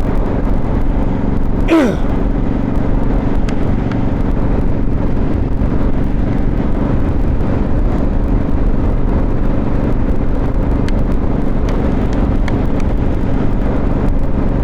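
Motorcycle engine running at a steady cruise, with wind and road noise on the rider's lavalier microphone. About two seconds in there is a brief tone falling in pitch.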